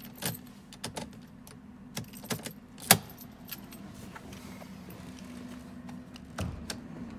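A run of sharp metallic clicks and jingling, the loudest about three seconds in and one more near the end, over a steady low hum.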